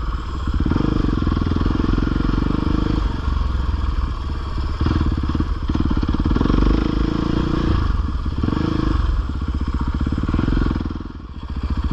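450cc four-stroke dirt bike engine under way on trail, the throttle rolled on and off every second or two so the engine note keeps rising and falling, with a brief drop-off just before the end.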